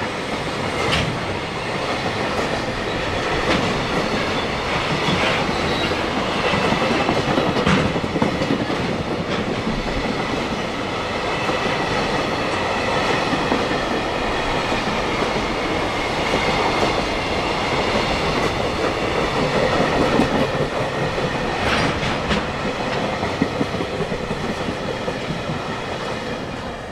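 A long JR Freight container train's flatcars rolling past close by, wheels clicking and clacking over the rail joints with a steady rumble and a faint high ringing from the wheels and rails. It tails off slightly near the end as the last wagon goes by.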